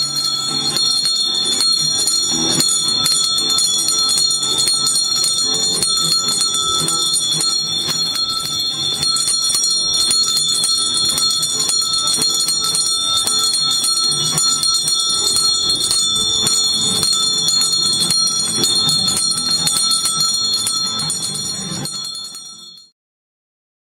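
Bells ringing without pause, a dense clangour of rapid strokes over steady high ringing tones, cutting off abruptly near the end.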